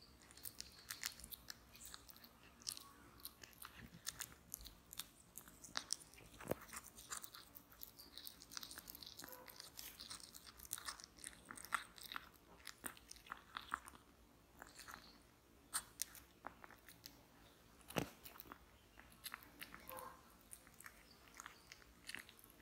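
Tabby cat eating sliced turkey off a ceramic plate, close to the microphone: a busy, irregular run of small chewing and mouth clicks, with a few sharper clicks standing out, the strongest about six and eighteen seconds in.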